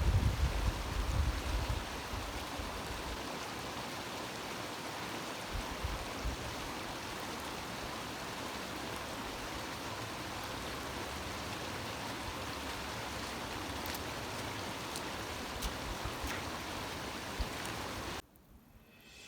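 The young Colorado River near its headwaters, running as a small stream with a steady rush of water. A low rumble sits under it in the first couple of seconds, and the water sound cuts off near the end.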